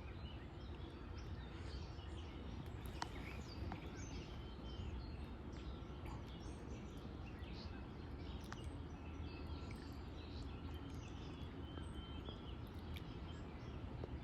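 Faint outdoor riverside ambience: a steady low background rush with scattered faint bird chirps throughout.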